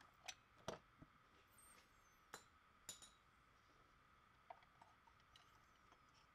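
Near silence with a handful of faint, scattered metallic clinks from hand tools and bolts as the last water pump bolts are loosened.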